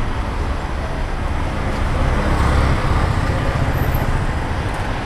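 Street traffic: steady road noise from passing vehicles, with a low rumble that swells around the middle.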